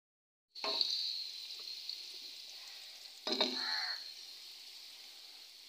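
Sliced onions sizzling in hot ghee in an aluminium karahi. The sizzle starts abruptly about half a second in and slowly dies down. A little past three seconds in, a wooden spatula clatters and stirs them, with a fresh burst of sizzle.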